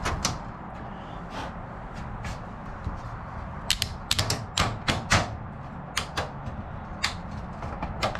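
Sharp, irregular metallic clicks and taps as small parts and a hand tool are set into and against the aluminium wing spar. A few fall close together about four to five seconds in, over a steady low hum.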